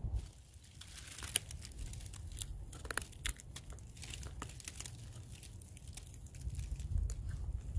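Scattered sharp crackles and rustles of dry forest litter (pine needles, dead leaves and bark) being disturbed close to the microphone, over a low steady rumble.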